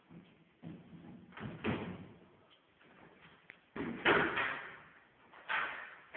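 Four bumps and scrapes in a row, each fading quickly, the loudest about four seconds in.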